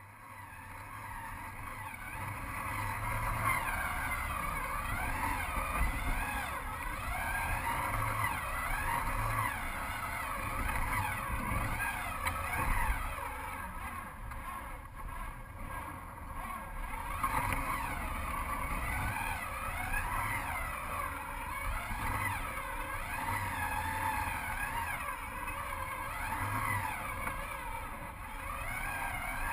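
Electric drive motor and plastic gears of a Lego Technic model Unimog whining as it drives. The level builds over the first second or two, and the pitch wavers up and down.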